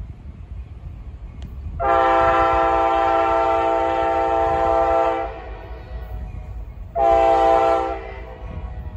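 Diesel freight locomotive's multi-chime air horn sounding one long blast of about three and a half seconds, then a short blast of under a second, as the train approaches a road grade crossing. A low rumble from the approaching train runs underneath.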